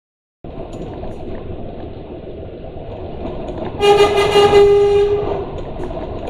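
Lorry's horn sounded once, a single held note for about a second and a half, over the steady running noise of the truck's engine and cab.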